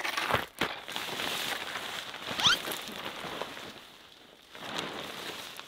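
Heavy canvas tarp rustling as it is handled and propped up on a wooden pole, with footsteps crunching on gravel and dry leaves. A brief rising chirp about two and a half seconds in.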